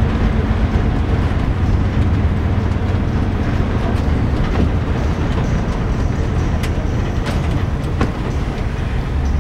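A heritage double-decker bus driving along, heard from inside on the upper deck: a steady engine drone with the body and windows rattling, and a few sharp clicks in the second half.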